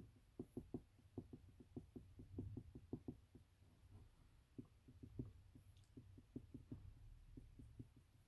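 Dry-erase marker making quick hatching strokes on a whiteboard: faint soft taps, several a second in an uneven rhythm.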